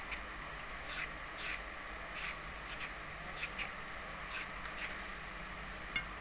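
Green papaya being shredded with a hand-held claw shredder: short scraping strokes, roughly two a second at an uneven pace.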